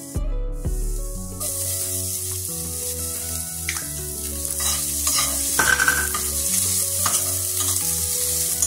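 Minced garlic and sliced onion sizzling in hot coconut oil in a stainless steel frying pan, the sizzle starting about a second in, with a metal spoon stirring and scraping the pan. Background music plays underneath.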